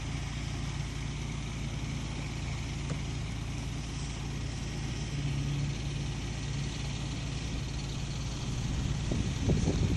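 A steady low engine hum, with louder uneven bursts of low noise near the end.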